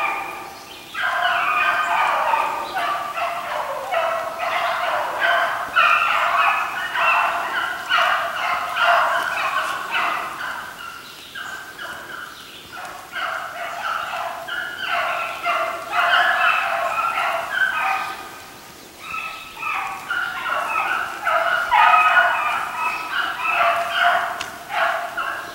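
A pack of hounds in full cry on a hare's track, several voices baying and overlapping almost without a break, with short lulls about midway and again later.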